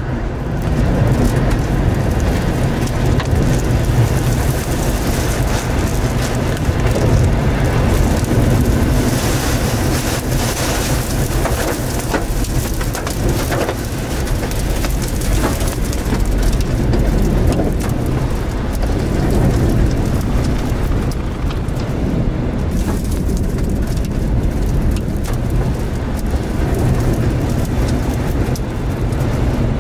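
Tornado wind blowing hard around a vehicle, with rain and debris pelting it and a deep rumble throughout, broken by scattered sharp knocks.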